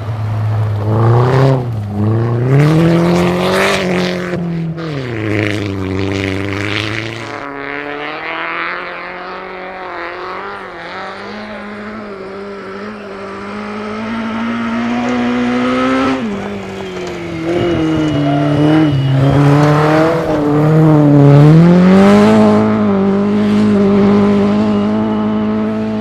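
Rally car engine driven hard, its pitch climbing and dropping several times as it accelerates and shifts, with a lower, steadier stretch midway and sharp crackles in the first several seconds.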